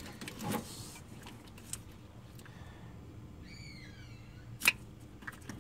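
Spanner clicking against a rusted nut on an alternator's output terminal: a few light taps, then one sharp metallic click about three-quarters of the way through.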